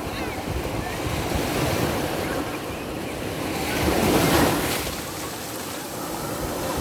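Black Sea waves washing onto the shore, one wave breaking loudest about four seconds in, with wind buffeting the microphone.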